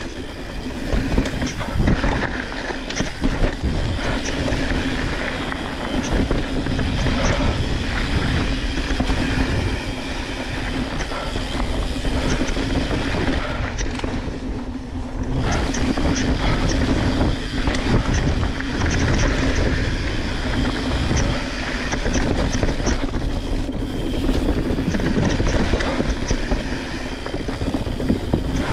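Mountain bike riding fast down a dirt singletrack: tyres rumbling over dirt and wooden trail planks, with the bike rattling and clacking over the rough ground the whole way, easing briefly midway.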